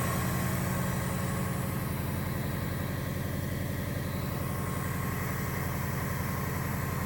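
A 1994 Subaru Legacy Turbo's EJ22T turbocharged flat-four engine idling steadily with even exhaust pulsing, just after new header and up-pipe gaskets were fitted. To the owner it sounds really good, with no exhaust leaks heard.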